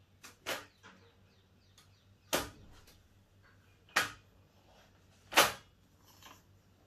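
Impatient knocking to be let in: four sharp knocks about a second and a half apart, with a few fainter taps between them.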